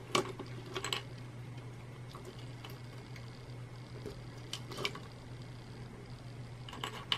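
A handful of light, scattered clicks and taps from small circuit boards being handled and plugged together, over a steady low hum.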